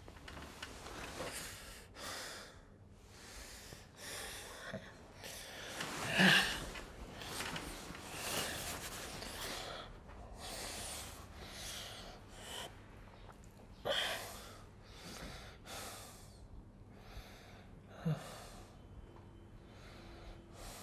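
A man breathing heavily and unevenly in a run of noisy breaths, with three louder, sharper breaths standing out.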